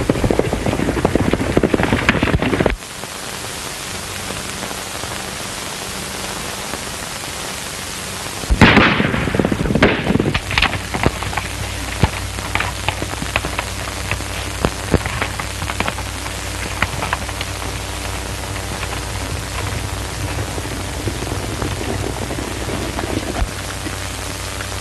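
Steady hiss and hum of an early-1930s film soundtrack under an action scene. A clattering noise cuts off suddenly about three seconds in. A loud burst of noise comes about nine seconds in, followed by scattered sharp cracks at irregular intervals.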